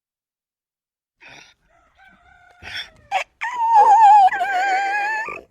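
Donkey braying: a few wheezy breaths, then a loud, drawn-out call with a wavering pitch lasting about two seconds.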